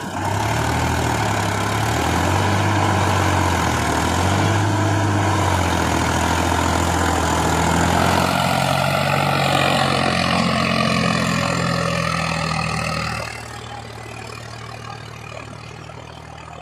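Heavy diesel engine running loud with its pitch rising and falling. About 13 seconds in it drops to a much quieter, steady idle.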